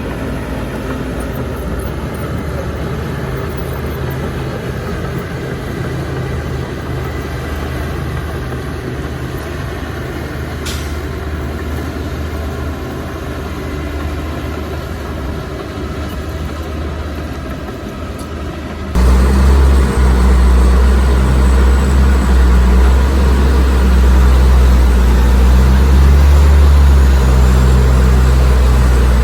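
Heavy diesel earthmoving machinery (bulldozer and dump trucks) running steadily. About two-thirds of the way in, the sound abruptly becomes much louder and deeper, with a strong low engine rumble.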